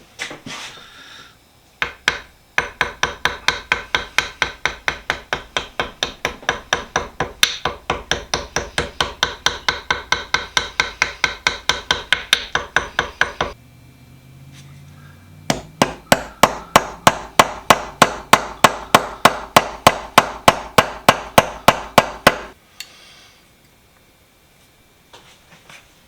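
A small hammer tapping rapidly on metal, about five ringing strikes a second, in two runs: the first lasts about eleven seconds, the second about seven, after a short pause. Typical of peening a new brass pin into the hand vise.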